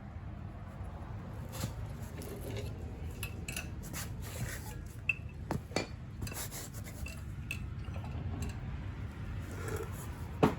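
Scattered metallic clinks and clicks of hand tools and bolts being handled on metal, several with a brief high ring, and a louder click near the end.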